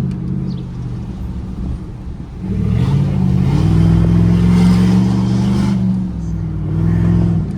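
Chevrolet Silverado 2024 High Country's gasoline V8 pulling through its open exhaust cutout, a deep exhaust note. It picks up about two and a half seconds in, holds for a few seconds, eases off around six seconds, and swells again briefly near the end.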